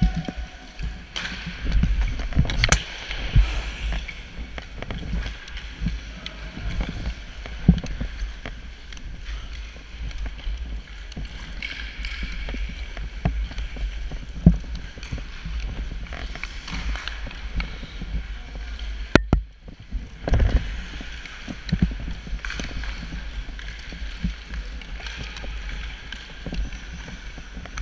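Hockey sled gliding on rink ice, its blades scraping and the stick picks digging into the ice in repeated pushes, with knocks and clatter and a low rumble from the sled-mounted camera. A single sharp crack comes about 19 seconds in.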